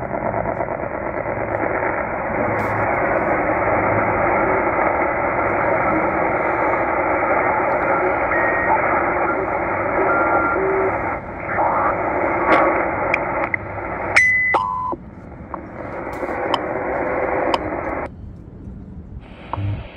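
Tecsun H-501x shortwave receiver in upper-sideband mode giving steady band noise as it is tuned up past 14.9 MHz, with a few short whistles and clicks as it passes signals. Near the end the sound drops out briefly and comes back as wider AM-mode hiss on 15000 kHz, carrying faint ticks from the WWV time station.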